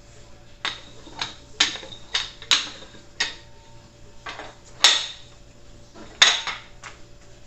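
Kitchen utensils and dishes clattering on a counter: about a dozen sharp clinks and knocks at irregular intervals, the loudest about five and six seconds in.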